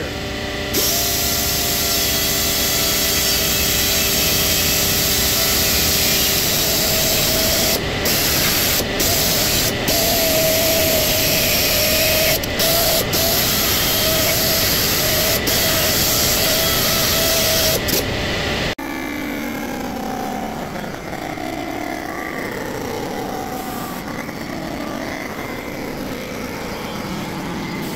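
Air die grinder with a carbide burr running at high speed, deburring the freshly surfaced deck of a Toyota 3VZ cast-iron engine block, with a few brief dips as the burr is lifted or moved. About two-thirds of the way through it stops abruptly and a quieter, steady run of the block surfacing machine follows.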